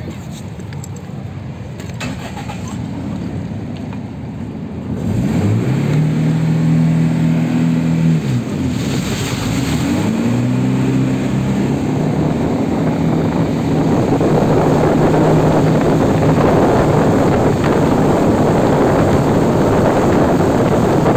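Jet ski engine speeding up about five seconds in, its pitch rising, dipping briefly and climbing again, then running steady at speed. A rush of water spray and wind grows louder over the engine as it goes.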